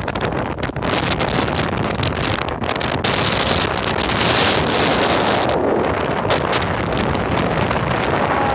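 Strong wind blowing across the microphone: a loud, steady rushing noise.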